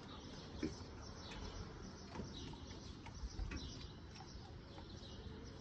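Faint, short, high bird chirps, some falling in pitch, coming every second or so, with a few soft clicks in between.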